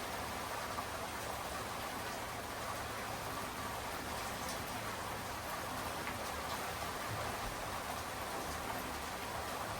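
Steady rain falling: an even hiss, with a few separate drops heard now and then.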